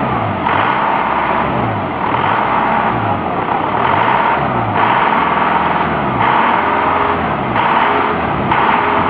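A vehicle engine revved up and down over and over, its note dipping and climbing back about once a second, loud throughout.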